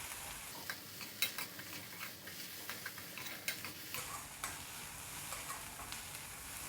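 Chopped carrot, beans and cabbage sautéing in butter in a pan over a faint sizzle, with a spatula stirring and clicking irregularly against the pan.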